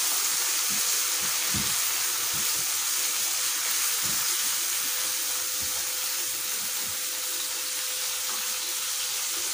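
Minced chicken with yogurt sizzling in a non-stick frying pan: a steady frying hiss. A silicone spatula stirring it gives a few soft knocks in the first half.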